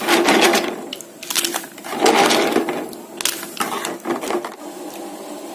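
Clam shells clattering against each other and the pot in irregular bursts as they are handled in boiling water, giving way near the end to a steady low hiss.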